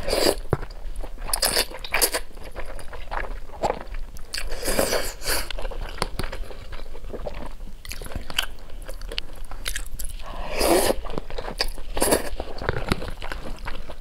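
A person eating wide flat noodles in chili oil: several slurps of noodles, the first right at the start and others about five seconds in and near eleven and twelve seconds in, with wet chewing and small sharp clicks between them.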